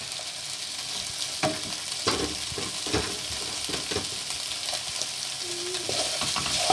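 Pieces of turkey in pepper masala sizzling steadily in a frying pan as they fry dry at the end of cooking, with a wooden spatula now and then scraping and knocking through them as they are stirred.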